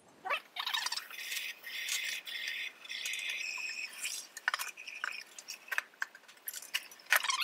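A white plastic fermenting bucket and its lid being handled at a steel kitchen sink: rattling and rubbing plastic, then a run of clicks and knocks, with two louder knocks near the end.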